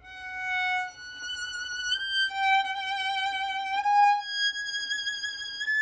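Solo violin playing long, bowed notes with vibrato. The pitch slides up in small steps, about a semitone at a time, as the player shifts position up the string.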